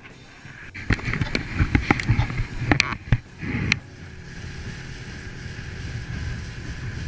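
Knocks and clatter in an aluminium fishing boat for about three seconds, then a boat motor running with a steady low hum.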